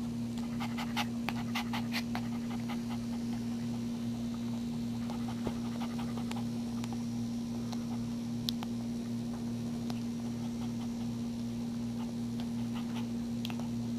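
Mother dog panting steadily and without pause after whelping, close to the microphone, with scattered small clicks, mostly in the first two seconds and again near the end.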